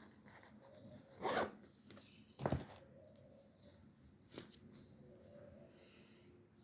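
Two short, loud scraping rustles a little over a second apart, then a fainter tap, over quiet room tone: small handling noises at a study desk.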